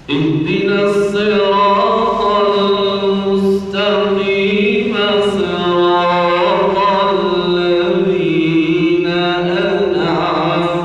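A young man's voice reciting the Quran in the melodic tajweed style into a handheld microphone. He holds long, ornamented notes and pauses briefly for breath about four seconds in.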